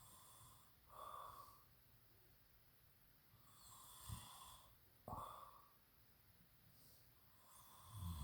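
Soft snoring: faint, slow breaths a second or more apart, with short snorts about four and five seconds in and a louder snore starting near the end.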